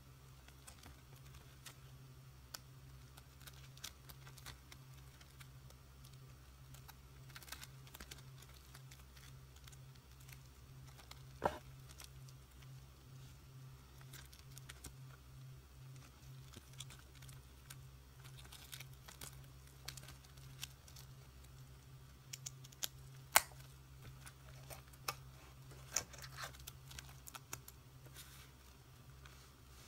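Clear plastic binder sleeves crinkling and clicking as the pages of a small ring binder are turned by hand, with two sharper clicks, over a steady low hum.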